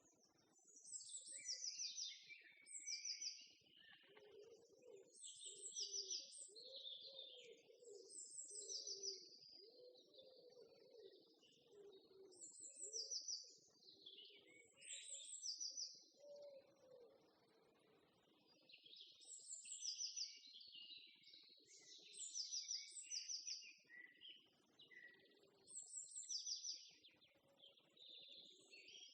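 Songbirds chirping, faint: short high phrases repeated every second or two.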